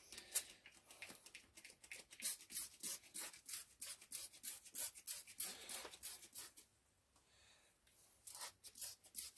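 Trigger spray bottle squirting degreaser onto metal vise parts in quick repeated pumps, about three short hisses a second, pausing for a moment and then giving a few more squirts near the end.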